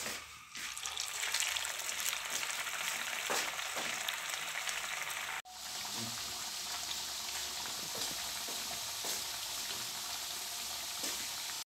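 Four corn-flour arepas deep-frying in hot oil in a frying pan: a steady sizzle that swells up about half a second in and breaks off for an instant just past the middle.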